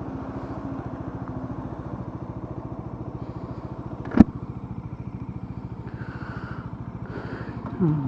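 Bajaj Dominar 400's single-cylinder engine running steadily at idle, its firing pulses evenly spaced. A single sharp click cuts in about four seconds in, and the sound gets louder with a bending pitch shortly before the end.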